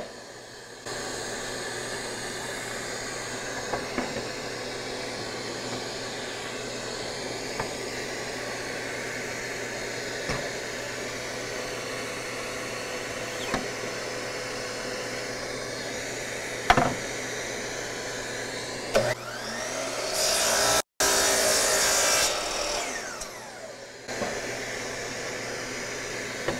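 Shop vacuum used as a dust extractor running steadily, with a few sharp clicks. About twenty seconds in, a 12-inch Bosch GCM12SD glide miter saw spins up and cuts through a hardwood board for about two seconds, then its blade winds down with a falling whine.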